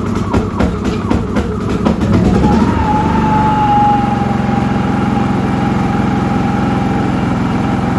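Champion 4500-watt inverter generator engine running just after its first-ever cold start on choke. At first it runs with a fast, uneven pulsing. About two and a half seconds in its pitch rises briefly, and it settles into a steady, even run with a steady whine.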